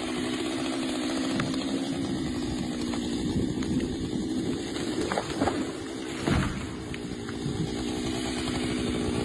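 Chainsaw engine running at a steady speed, with a few sharp knocks about five to six seconds in.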